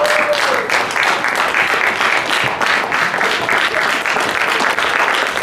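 A congregation applauding: many hands clapping in a dense, steady stream.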